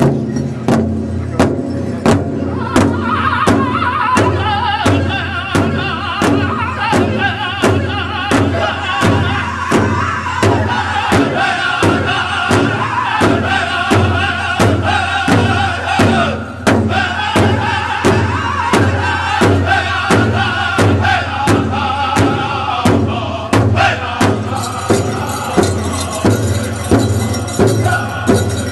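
Powwow drum group striking a large hide drum together in a steady beat, about two and a half strokes a second, with men's voices joining in song a few seconds in.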